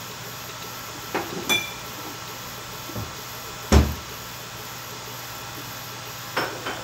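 V-King 400 CoreXY 3D printer running a print, with a steady hum from its fans and motors. Several knocks sound over it: two about a second in, one with a brief ringing clink, a loud, deep thump just before four seconds, and two more knocks near the end.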